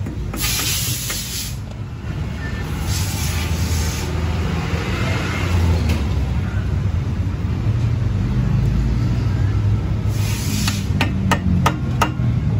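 A steady low rumble with three short bursts of hissing. Near the end, a quick run of sharp metallic taps as a hammer knocks the grease cap onto the front wheel hub after a wheel bearing replacement.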